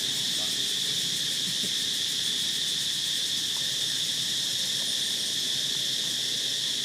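Steady chorus of insects, one continuous high-pitched drone that does not break or change.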